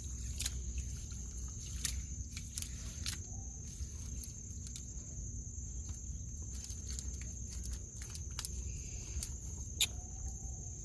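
Insects chirring in a steady high-pitched drone, with a scatter of short sharp clicks and a low rumble underneath.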